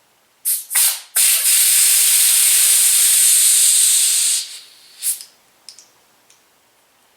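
Pressurised gas hissing from a nozzle: two short blasts, then a steady blast lasting about three seconds, and one more short blast.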